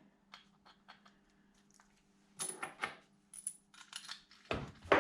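Small metal engine parts clinking and tapping as they are handled and set down: a run of light clicks, then a louder knock near the end.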